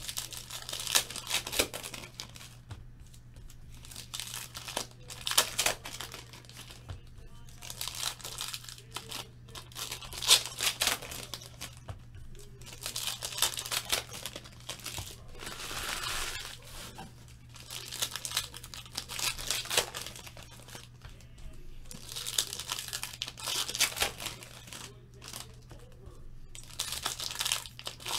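Foil wrappers of football trading-card packs being torn open and crinkled by hand, in repeated irregular spells of crackling.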